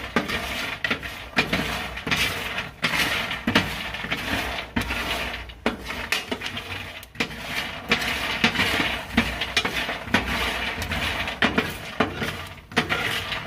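Peanuts being stirred with a wooden spoon on a metal baking tray in a hot oven: a continuous, irregular clatter of the nuts clicking and rattling against the tray and each other, which the cook takes as the sign that they are roasting well.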